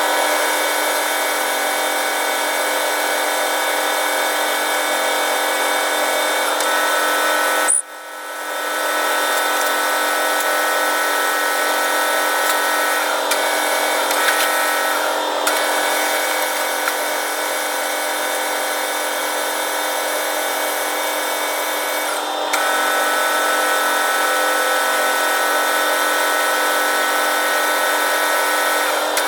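Manual lathe running: a steady machine whine from its motor and gear train, with a short sharp drop in level about eight seconds in.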